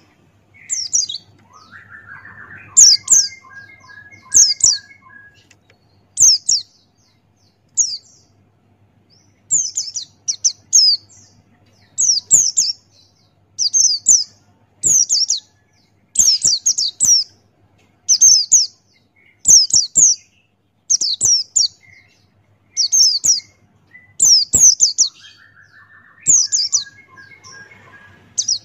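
Pleci Buxtoni white-eye singing: short, sharp, high chirps falling in pitch, in clusters of two or three, repeated every second or two. Twice, a lower stuttering run of short notes joins in.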